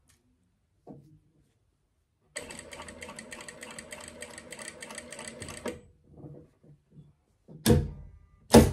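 Industrial sewing machine stitching the hem of a satin dress in one run of about three seconds, a rapid even clatter, then stopping. Two loud thumps come near the end.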